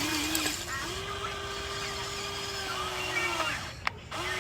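Electric motors of a Huina 1594 RC toy excavator whining steadily as it is worked, sagging in pitch and cutting out about three and a half seconds in, with a sharp click before the whine starts again near the end.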